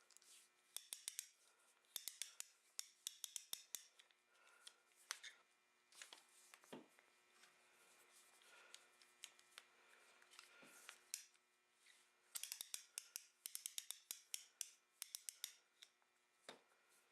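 Quick runs of light, sharp clicks from small metal parts and hand tools being worked at the bench, the runs coming in bursts a few seconds apart.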